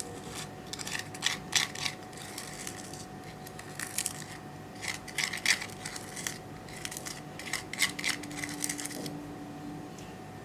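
Clear slime being squeezed and worked by hand, giving bursts of crisp clicking pops, each cluster of clicks a second or so long, stopping shortly before the end.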